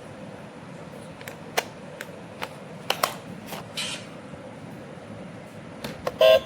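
Toy remote-control car's small electric motor running steadily, with scattered sharp clicks and knocks. Near the end, a loud electronic tone cuts in.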